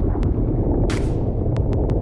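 Outrigger boat riding over choppy open sea: a steady low rumble of wind on the microphone and the boat's motion, broken by sharp knocks and a couple of short hissing splashes of water against the hull.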